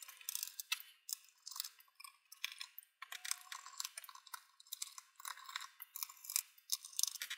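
Small screwdriver backing out tiny screws that hold a laptop motherboard to its chassis: faint, irregular clicks and short light scrapes.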